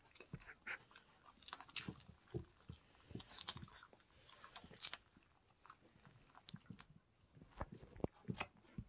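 Three-week-old English Springer Spaniel puppies mouthing and nibbling at a person's hands and face: faint, scattered chewing and smacking noises with small clicks.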